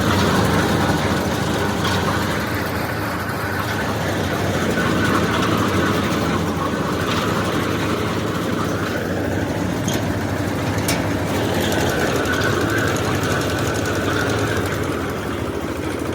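Engine of a borewell drilling rig running steadily, with a few faint sharp ticks.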